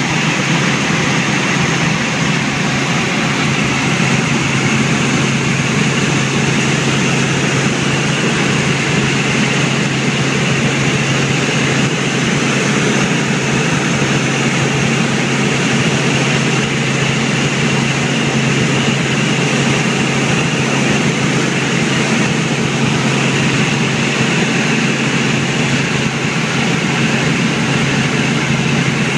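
Helicopter in flight, heard from inside the cabin: a loud, steady drone of engine and rotor noise with a strong low hum that does not change.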